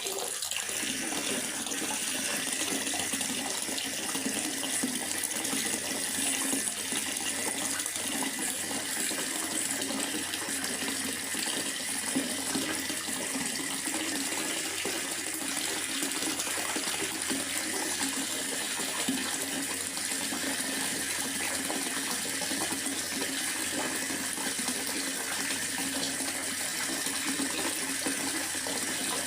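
Steady rain falling in a forest: a constant, even hiss of water with no separate events.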